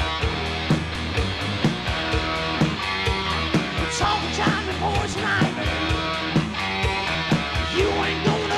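Live rock band playing an instrumental passage: electric guitar, bass and drums on a steady beat, with a lead line of bent, gliding notes coming in about halfway through and again near the end.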